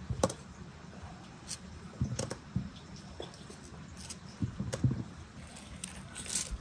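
Scattered soft taps and clicks of peeled garlic cloves being set down among halved potatoes and tomatoes on parchment paper. Near the end comes a short hiss of lemon halves being squeezed, juice dripping onto the vegetables.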